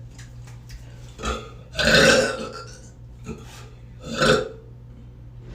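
A person burping deliberately and loudly, a run of separate burps: the longest and loudest about two seconds in, another just after four seconds, with shorter ones between.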